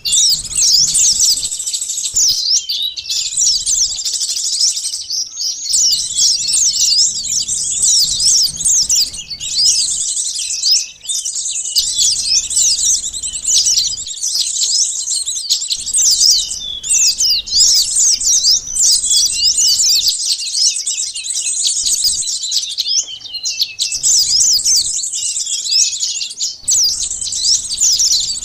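Sunbirds chattering as a bird-lure call: a dense stream of rapid, high-pitched chirps and trills from several birds at once, nearly unbroken with a few short pauses.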